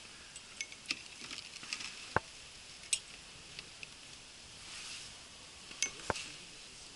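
Scattered light clicks and rustles of fishing tackle being handled in an inflatable boat as a crucian carp is brought in on the line, with two sharper knocks, about two seconds in and again about six seconds in.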